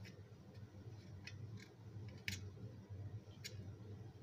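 Faint handling noises at the lathe headstock drain, with foil and a steel drain pan: about five short, sharp clicks and ticks, the loudest a little past halfway, over a low steady hum.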